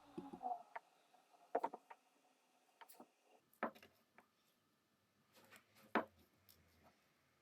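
Faint, scattered small clicks and taps of stepped jewelry pliers handling short pieces of sterling silver wire as they are bent into rings, about eight separate clicks with the sharpest one about six seconds in.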